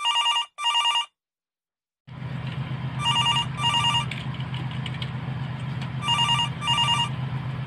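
Telephone ringing in a double-ring pattern: two short rings, repeated three times about three seconds apart. From about two seconds in, a steady low hum runs underneath.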